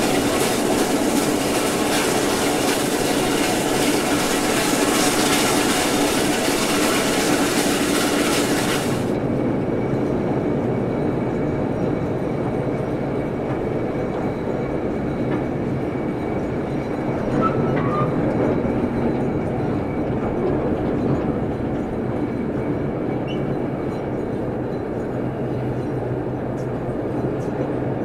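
LNER A4 Pacific steam locomotive 60009 Union of South Africa running along the line, heard close up from its side: a steady, dense running noise of wheels and motion. About nine seconds in the sound turns abruptly duller, the high hiss gone.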